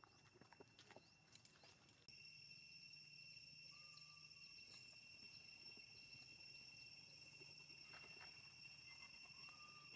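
Near silence: a faint background with a few soft clicks, then a steady high-pitched whine that comes in abruptly about two seconds in, with two brief faint whistles later on.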